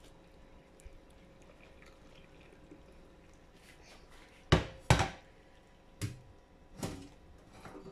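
Stainless steel colander of drained spinach knocking against a steel sink as it is handled: four sharp metallic knocks in the second half, after a faint stretch.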